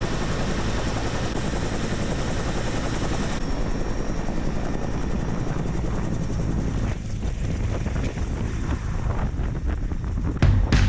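Helicopter running close by and lifting off overhead: steady rotor chop with a high turbine whine that steps up in pitch a few seconds in as power comes on for take-off. The sound eases a little about seven seconds in as it climbs away, and music cuts in near the end.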